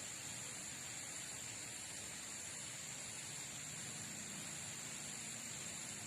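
Steady hiss with a thin high tone held throughout, unchanging.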